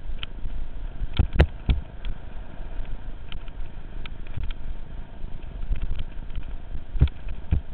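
Mountain bike ridden over a bumpy dirt track, heard through a helmet-mounted camera: a steady low rumble of wind and tyres, with sharp knocks and rattles from the bike jolting over bumps, three close together a little over a second in and two more near the end.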